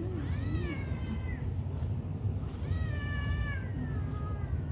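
A cat meowing twice, each a long, drawn-out meow that rises and then falls in pitch, over a steady low rumble.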